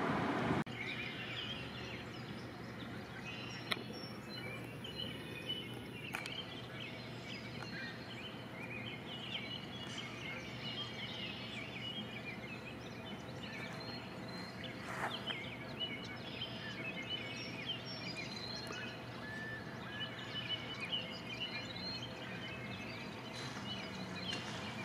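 Outdoor ambience: many small birds chirping and twittering over a steady low background hum, with a few faint knocks. A louder rushing noise cuts off about half a second in.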